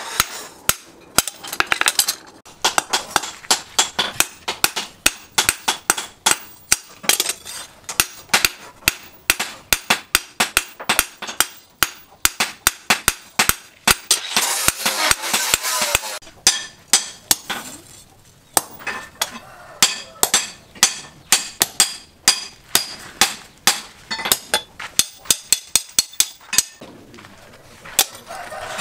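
Hand hammer beating the red-hot tang of a leaf-spring steel butcher knife on a steel post anvil. The sharp metallic blows come in quick runs, each ringing briefly, with short pauses between runs.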